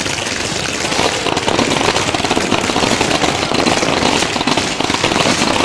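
Fireworks crackling in a dense, continuous barrage of rapid sharp pops.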